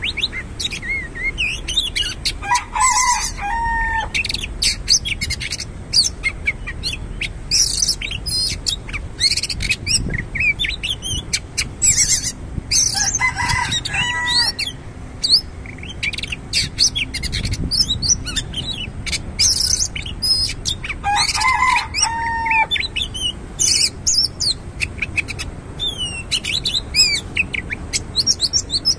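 Oriental magpie-robin singing a run of quick, varied chirps and whistles. Three times, about nine seconds apart, a longer, lower call cuts in.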